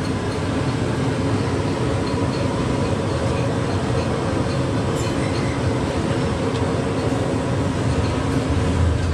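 Steady low roar of the gas burner heating the stall's pot of boiling water for the noodles, unbroken throughout.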